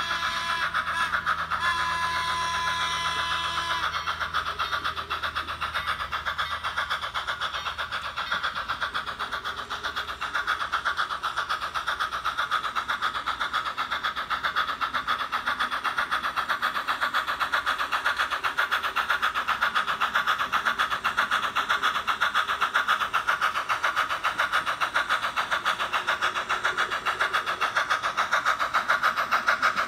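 Model steam locomotive sound from a Soundtraxx Tsunami 2 decoder and megabass speaker: a 2-8-0 Consolidation's exhaust chuffing in rapid, even beats as the engine works its train. A held tone sounds over it during the first few seconds and stops about four seconds in.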